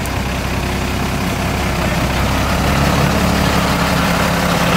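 Off-road truck engine running steadily.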